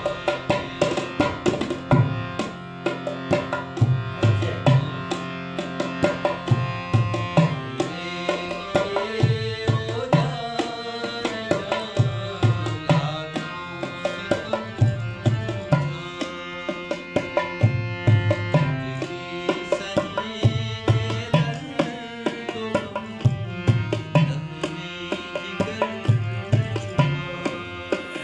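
Harmonium playing a sustained melody with a dholak hand drum keeping a steady rhythm of deep and sharp strokes, an instrumental passage of a Punjabi/Urdu ghazal.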